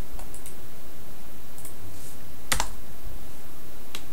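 A few scattered computer keyboard keystrokes, the loudest about two and a half seconds in, over a steady background hiss.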